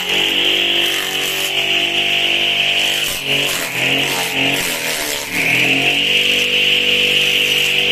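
Wooden-cased grass chopper running steadily as grass is fed through it, its spinning blades hissing. About three seconds in the motor note sags under the load of the grass, and it picks back up about five seconds in.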